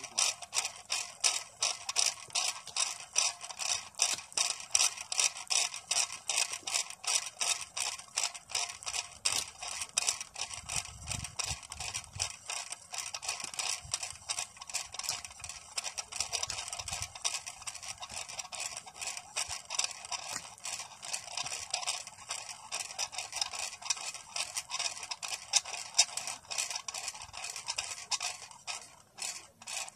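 Pulley of a handmade cable winch running down a steel cable with a load of potatoes, a rhythmic clicking scrape about three times a second. It thins out and stops near the end as the load reaches the bottom.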